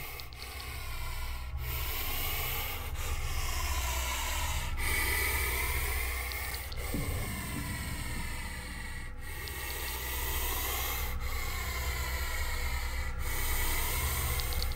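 Puff adder hissing loudly with forceful breaths of air, a long hiss roughly every one to two seconds with short breaks between, as a threat display.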